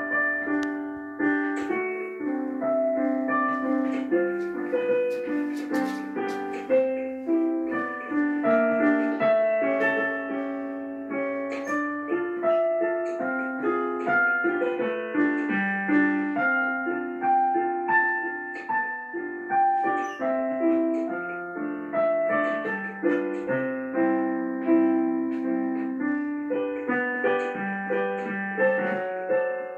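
Background piano music, many notes ringing and overlapping in a continuous flowing stream.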